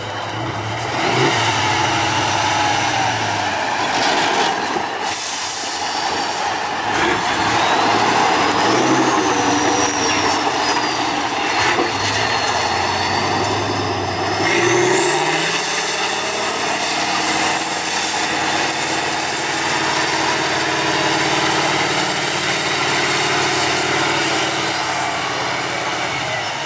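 Heavy off-road trial trucks' diesel engines revving and running under load as they climb steep dirt slopes. About fifteen seconds in the engine note rises and a high whine climbs and holds.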